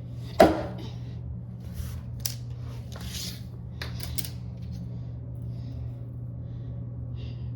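A 3D-printed throwing star strikes the target with one sharp hit about half a second in, followed by a few faint clicks and taps. A steady low hum runs underneath.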